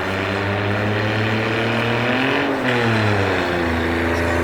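Motor vehicle engine running, revving up once about halfway through and settling back down.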